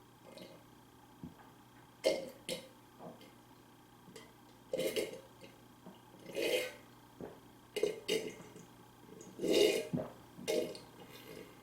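Close mouth sounds of a person eating and drinking, in about nine short, irregular bursts.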